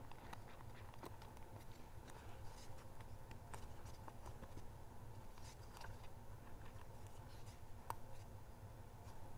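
Faint scattered clicks and light handling noise as a metal nut is threaded by hand onto the stem of a gas regulator's diaphragm assembly, one slightly sharper click near the end, over a steady low hum.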